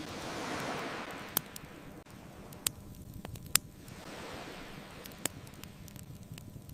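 Ocean waves washing up the shore and drawing back: a hissing surge in the first second or so that fades, then a softer one, over a low steady rumble. A campfire crackles a few times over it, with four sharp pops, the loudest about three and a half seconds in.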